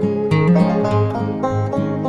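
Background music: bright plucked-string tune, banjo and acoustic guitar, with quick picked notes in a country or bluegrass style.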